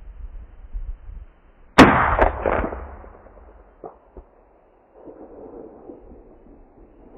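A single rifle shot from a .308 Winchester: a sharp crack about two seconds in, followed by a rolling echo that dies away over about a second. Two faint knocks follow a couple of seconds later, with low wind rumble around them.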